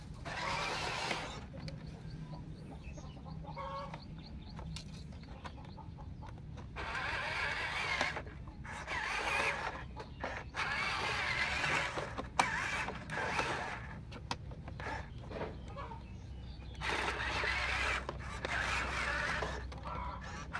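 Huina 1573 RC dump truck driving over dirt, its small electric drive motor and gearbox running in spells of a few seconds. Chickens cluck in the quieter gaps.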